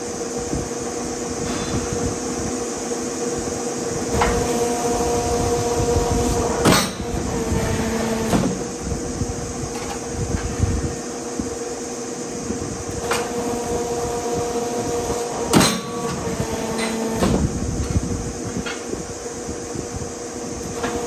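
Steel-bending press working over its steady running hum. It goes through two strokes about nine seconds apart: each time a tone rises for a couple of seconds and ends in a loud metal bang as the plate is pressed, followed by lighter knocks of the steel plate being handled in the die.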